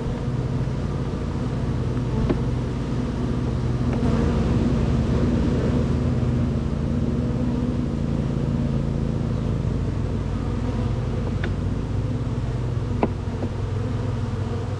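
Honey bees buzzing in a steady, droning hum around an open hive, with a few light clicks now and then.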